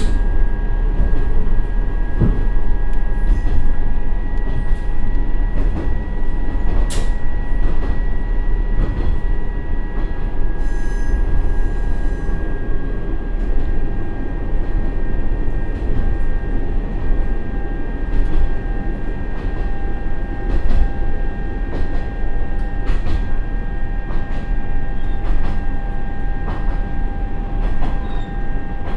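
Akechi 100-series diesel railcar (Niigata DMF13HZ engine, TACN-22-1601 transmission) running downhill at a steady speed with its converter brake (hydraulic retarder) held on. A steady whine sits over the rumble of the wheels on the rails, heard inside the car.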